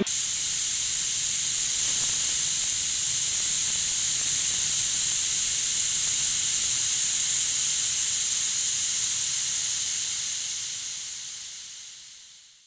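Pressure cooker's weight valve venting steam: a loud, steady, high hiss that starts abruptly and fades away over the last few seconds.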